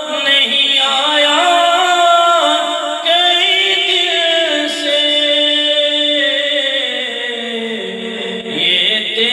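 A man singing an Urdu naat unaccompanied, holding long, wavering notes that slide in pitch, with a new phrase starting near the end.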